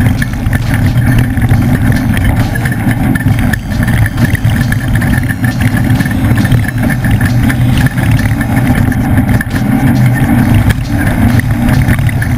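A leaf-sprung Ford desert race truck's engine running steadily at speed through a race lap, heard as a loud continuous rumble with constant knocks and rattles over the top.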